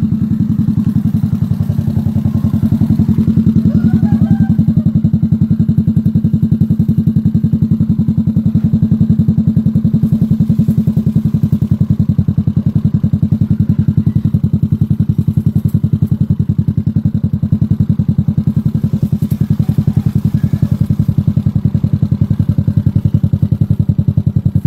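Motorcycle engine idling steadily, with an even, rapid exhaust pulse that does not rise or fall.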